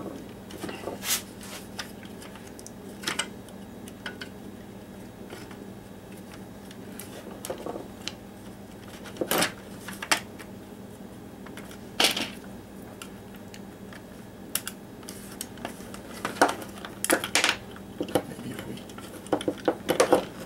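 Clicks and knocks of a Black & Decker Firestorm drill's plastic housing halves being handled and pressed together on a wooden workbench. The sharp taps come in scattered ones and twos, busier in the last few seconds.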